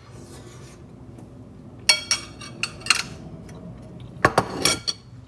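A fork clinking and scraping against a plate while eating: a few sharp knocks about two and three seconds in, and a louder cluster of clinks near the end.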